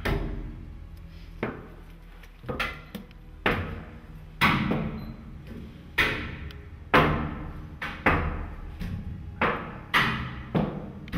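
Irregular knocks on a metal wall, roughly one a second at uneven spacing, each ringing out and echoing in the narrow walled passage.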